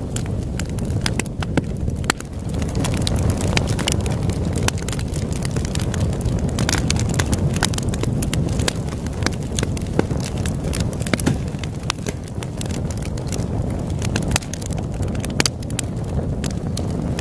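Wood campfire crackling and popping in many sharp, irregular snaps over a steady low rush, which the track pairs with ocean waves.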